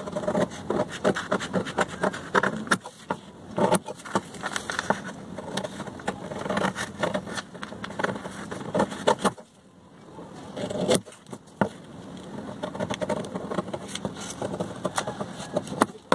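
Scissors snipping through a sheet of paper pattern in a run of short, crisp cuts, with the paper rustling as it is turned. The cutting pauses briefly a little past halfway.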